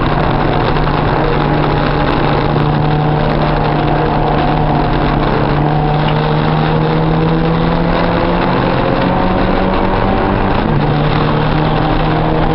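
Porsche 944 Spec race car's four-cylinder engine heard from inside the cockpit, running hard under load at high revs. The pitch holds steady, then climbs slowly through the second half as the car accelerates.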